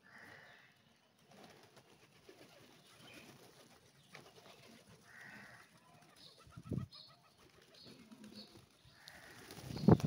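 Rock pigeons cooing softly, with a low thump about two-thirds through. Near the end comes a loud burst of wing flapping as several pigeons flutter together.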